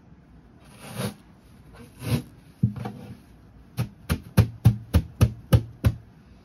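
Glued-on carpet being torn off a wooden speaker cabinet in short ripping tugs. There are a few scattered rips at first, then a quick, even run of about eight sharp rips, roughly three a second, where the adhesive is holding the carpet hard.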